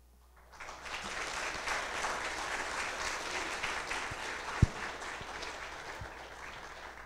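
Audience applauding in a lecture hall, starting about half a second in and slowly dying away toward the end, with a single sharp thump about two-thirds of the way through.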